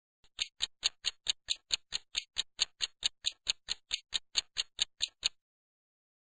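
Countdown-timer sound effect: a clock ticking quickly and evenly, about four to five ticks a second, stopping suddenly about five seconds in.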